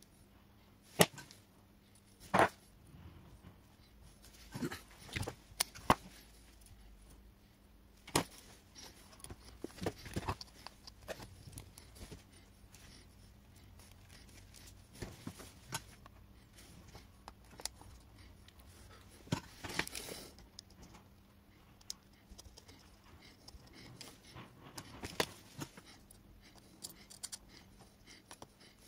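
Irregular clicks, taps and light scrapes of hands and a soldering iron working on a washing machine's electronic control board in its plastic housing, over a faint steady hum.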